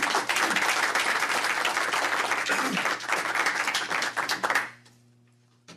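A small group of people clapping their hands in applause, dense and steady, then stopping suddenly near the end.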